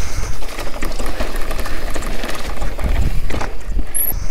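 Downhill mountain bike rolling over a rough trail: a dense clatter of rapid clicks and rattles from tyres, chain and frame over stones, over a steady low rumble of wind on the microphone.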